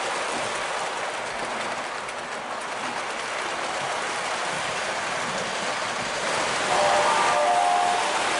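O gauge model freight cars rolling on tinplate track, a steady clattering rumble. About six and a half seconds in, the Williams FM Trainmaster's True Blast II sound system sounds its electronic diesel chord horn, two blasts of several steady notes, louder than the rolling.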